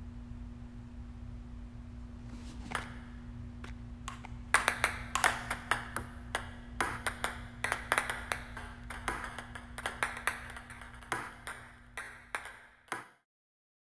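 Ping-pong balls dropping and bouncing on a hard surface. A single click comes first, then from about four and a half seconds in a quick, irregular scatter of sharp clicks that thins out, over a steady low hum. Everything cuts off suddenly near the end.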